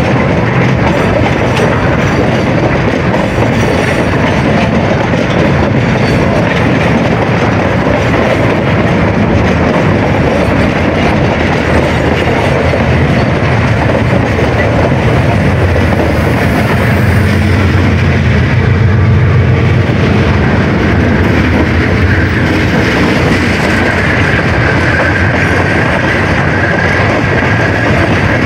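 Empty freight train's open wagons rolling past close by, wheels clacking over the rail joints. Past the middle the diesel locomotives' engine drone swells as they go by, and near the end a thin, steady high-pitched squeal rides over the rolling noise.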